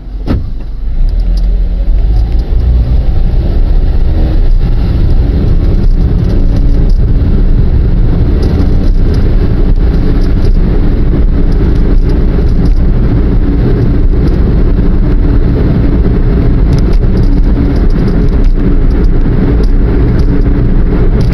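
Car pulling away from a stop and driving on: engine and road noise swell about a second in, then run steadily as the car cruises.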